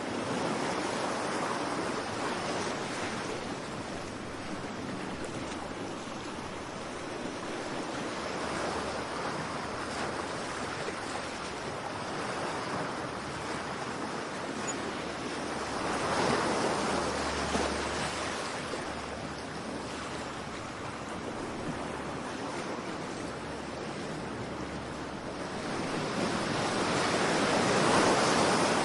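Ocean surf: a steady wash of waves that swells as waves break, once in the middle and most strongly near the end.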